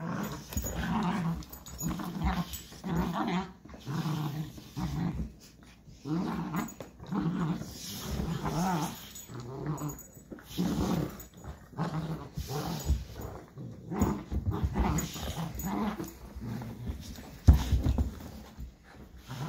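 A puppy play-growling over a tug toy with a bigger dog, in a long run of short growls broken by brief pauses. A single heavy thump near the end is the loudest sound.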